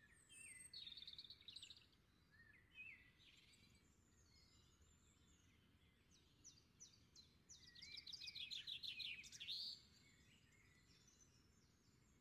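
Faint birds chirping, with quick trills of rapidly repeated notes just under a second in and a louder rapid run of notes from about eight to nearly ten seconds in.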